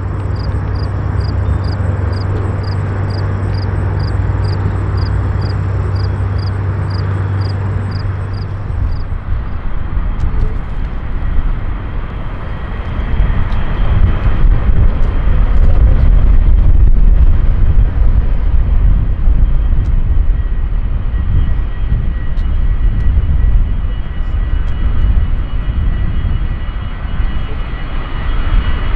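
A steady low hum with a regular ticking, then the three hush-kitted Pratt & Whitney JT8D engines of a Boeing 727-21 taxiing. Their rumble swells loudest partway through, and a steady engine whine grows near the end as the jet turns toward the listener.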